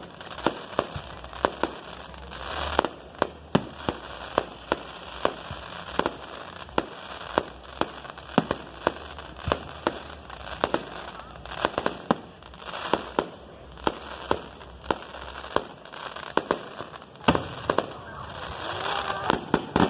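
Aerial fireworks bursting: a long run of sharp bangs, several a second at times, in an irregular rhythm, with crackling between them.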